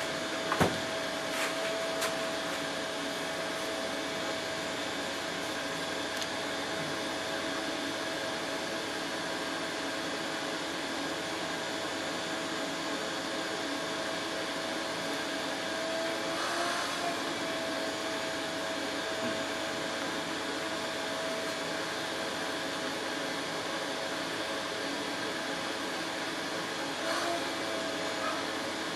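A machine running steadily in the workshop: an even drone with a constant hum, and a sharp click about half a second in.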